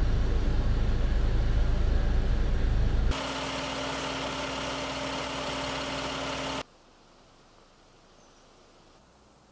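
A loud low rumble for about three seconds. It cuts to a fire engine running with a steady hum, and about three and a half seconds later cuts to faint outdoor ambience.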